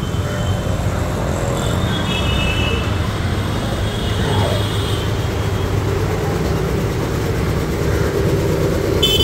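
5 HP twin-piston air compressor and its single-phase electric motor running steadily on a test run.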